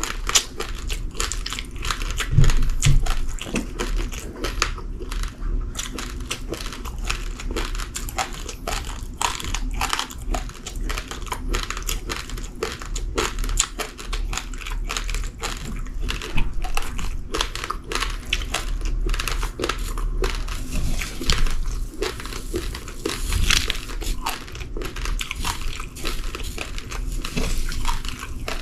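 Uncooked rice grains crunched between the teeth while chewing: a dense, continuous run of sharp little cracks and crackles.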